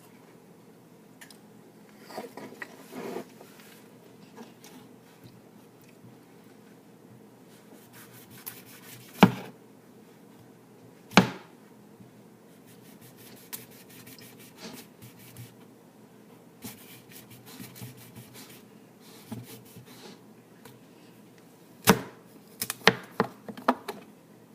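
Kitchen food-prep handling: scattered light clicks and rubbing, with sharp knocks of utensils or dishes about nine and eleven seconds in and a quick cluster of them near the end.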